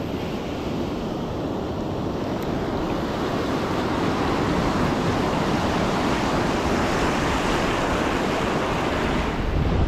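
Ocean surf breaking and washing up a sand beach, the rush growing louder over the first few seconds and then holding steady.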